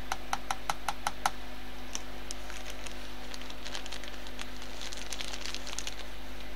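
A thin metal spatula tapped about seven times in quick succession against the rim of a plastic measuring beaker, knocking off fine plum-pit exfoliant powder, followed by fainter scattered ticks. A steady low hum underneath.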